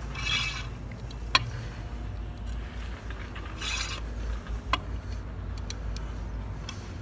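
Mustang hand swaging tool being wound down to press a swage fitting onto a jetter hose: two short metal scraping strokes and two sharp clicks from the tool, over a low steady hum.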